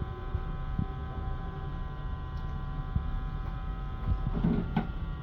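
Steady electrical hum in the background, with light handling noises: a few small clicks and a short rustle about four and a half seconds in.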